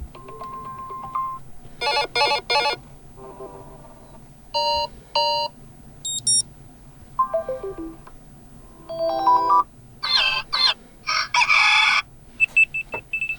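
A T-Mobile phone's built-in alarm tones previewed one after another through the phone's speaker: about nine or ten short clips of chimes, beeps and melodic tones, each a second or less and each different, with a brief gap between them.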